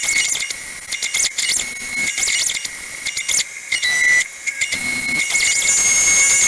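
Background electronic music with a repeating beat.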